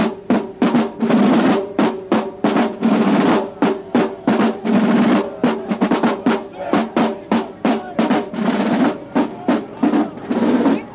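Marching band drum line playing a cadence: snare drums striking sharp, rhythmic strokes a few times a second, broken by several drum rolls, with bass drum hits underneath.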